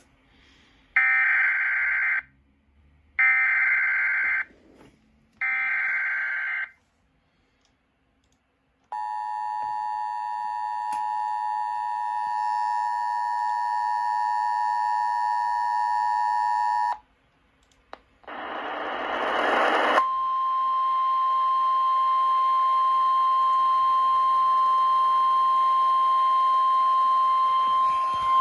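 Emergency Alert System tones: three short screeching SAME data header bursts, then the 8-second two-tone EAS attention signal. After a brief hiss of radio static comes a long steady single tone near 1 kHz, the NOAA Weather Radio warning alarm tone that precedes a flash flood warning.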